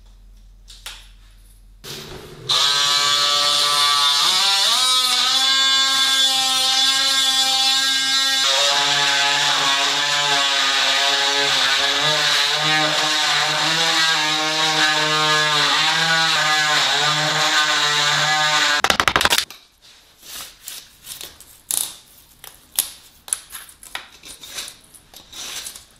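An electric power tool's motor runs for about sixteen seconds, rising in pitch as it spins up and then wavering, before it stops sharply. Scattered light clicks and knocks follow.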